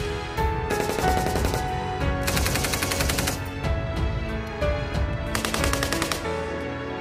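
Belt-fed machine guns firing from a prone line in three bursts of about a second each, rapid evenly spaced shots, with background music running underneath.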